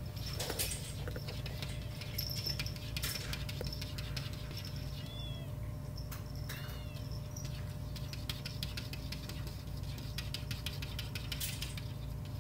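Kittens pawing and scrabbling at a glass pane, with many quick taps and clicks of paws and claws on the glass and two short, high squeaks about five and seven seconds in. A steady low hum runs underneath.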